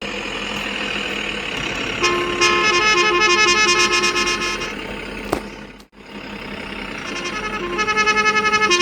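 Toy trucks' electronic horn sounds: a run of short tooting notes at a few fixed pitches over a steady hiss, starting about two seconds in, breaking off abruptly near the middle and resuming near the end.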